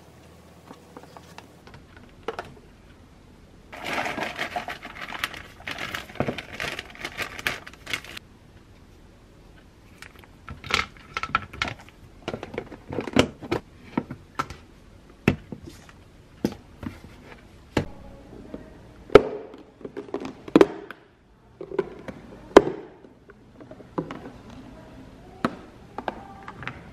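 Plastic food containers handled on a countertop: rustling for about four seconds starting about four seconds in, then a long run of sharp separate clicks and knocks as containers and lids are set down and snapped shut.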